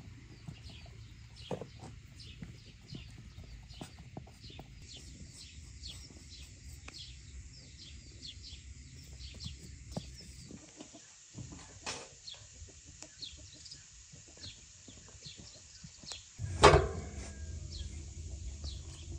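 Farmyard animal sounds: short high chirps repeating a few times a second, with one loud, sudden animal call near the end.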